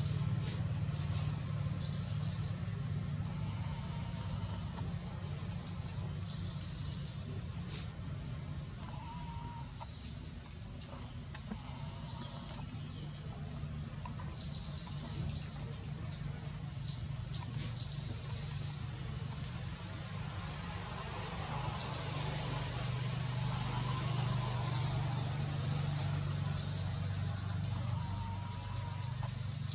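Forest ambience: insects buzzing high in repeated bursts of about a second each, denser and louder in the last third, with a few faint short chirps and a low steady hum underneath.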